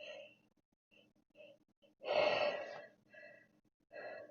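A person's gasping, breathy breaths of a sneezing fit: three short catches, then one long, loud gasp about two seconds in, followed by two shorter ones.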